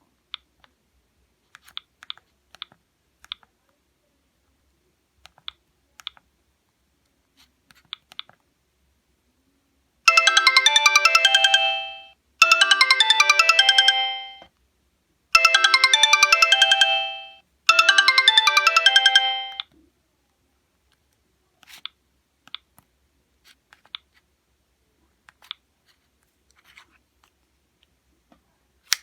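Sony Ericsson K770i mobile phone playing its original ringtone: a melody in four loud phrases of about two seconds each, starting about ten seconds in and fading out at the end of each phrase. Before and after it come scattered short faint clicks, and one sharper click at the very end.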